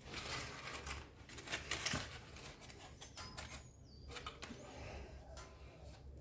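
Scattered clicks, rattles and scraping of tools and metal parts while a motorcycle's rear wheel and chain are being worked on, busiest and loudest in the first two seconds.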